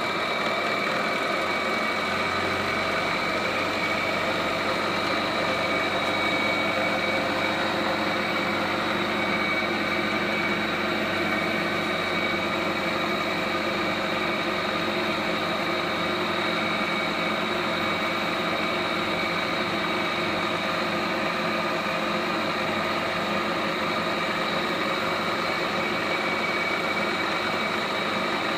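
Lagun FTV-2S vertical milling machine running steadily under power, its 3 hp spindle motor and drive giving an even hum with a steady whine in several pitches. It sounds healthy, which the seller calls "real good".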